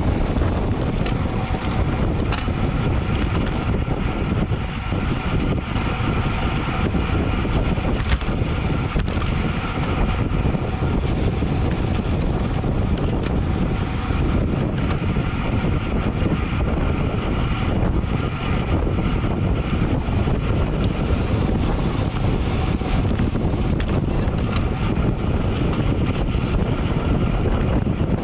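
Wind rushing over the camera microphone of a road cyclist riding at race speed, with tyre and road noise underneath.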